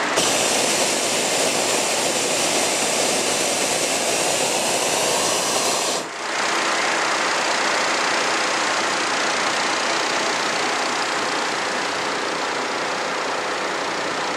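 Hot air balloon's propane burner firing in one long, steady blast. About six seconds in the sound changes abruptly as a brighter hiss drops away, and the burner keeps running.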